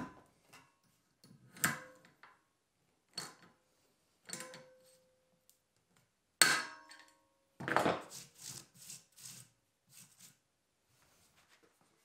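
A string of separate sharp metallic clicks and snaps, some with a brief ring: pliers snipping off pins, then a hand pop-riveter setting rivets into a steel frame, each rivet ending in a snap as its mandrel breaks.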